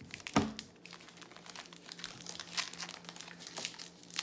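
Plastic wrappers of baseball card packs being crinkled and torn open by hand, a run of small crackles, with one thump about half a second in.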